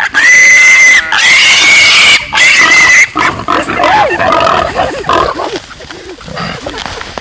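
Pot-bellied piglet squealing in distress as it is caught by a hind leg and bagged: three long, loud, high-pitched squeals in the first three seconds, then quieter, lower, wavering cries.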